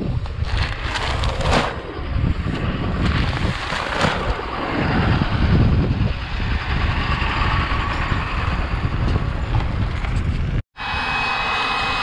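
John Deere tractor pulling a corn planter, its engine rumbling steadily and loudest about halfway through as it comes close. The sound cuts off suddenly near the end.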